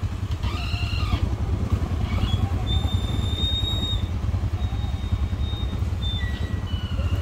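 A motor vehicle's engine running steadily with a low, fast-pulsing rumble, while thin high whistling tones come and go above it several times.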